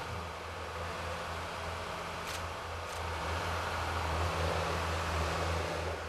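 Forestry forwarder's diesel engine running steadily with a constant low hum as the loaded machine drives, with two short knocks in the middle.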